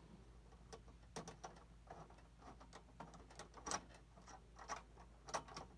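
Faint, irregular small clicks and ticks of a screwdriver working out the screw that holds the graphics card's mounting plate in a computer case.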